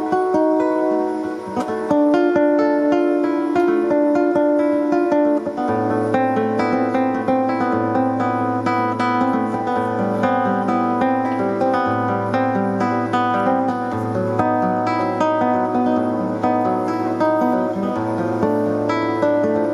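Music of plucked and strummed strings, with a low steady bass note that comes in about six seconds in and holds.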